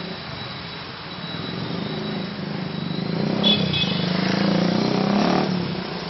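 Street traffic: a small motor vehicle's engine grows louder as it passes close, then falls away near the end, with a brief high beep about three and a half seconds in.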